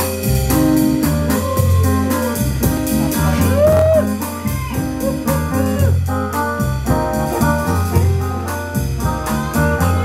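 Live band playing an upbeat, jazzy number: a drum kit keeps a steady beat under bass guitar, keyboard and saxophone.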